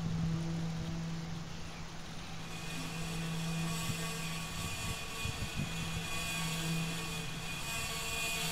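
Experimental ambient sound composition: a steady low drone over a rumbling, noisy haze, joined about two and a half seconds in by a cluster of high held tones.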